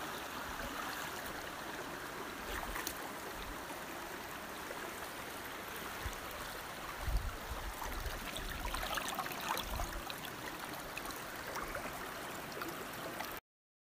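Steady rushing noise of flowing water, like a stream, with a brief low thump about seven seconds in. It cuts off suddenly shortly before the end.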